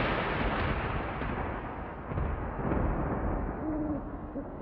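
A rumbling boom slowly dies away. Near the end an owl starts hooting, with two short hoots.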